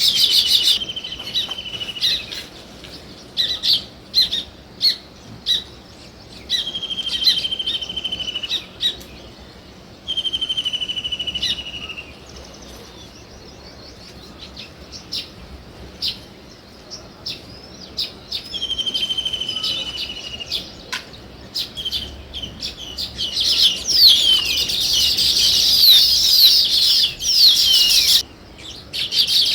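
House sparrows chirping: scattered single chirps and four short buzzy trills about a second long each, then, from about two-thirds of the way in, many birds chirping at once, densest and loudest near the end.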